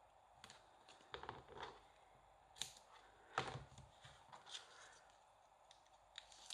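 Faint handling sounds of cardstock and tape: a few short rustles and light taps, the loudest about three and a half seconds in.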